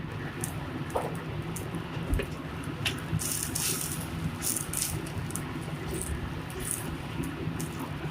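Steady sizzling in a cooking pan, with bright crackles and a few light clicks of a utensil.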